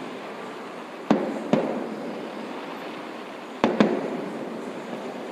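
Fireworks shells bursting: four loud booms in two close pairs, the first pair about a second in and the second near four seconds in. Each boom trails off in a rolling echo over steady background noise.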